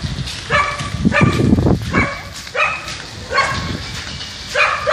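A dog barking repeatedly, short barks coming about once or twice a second.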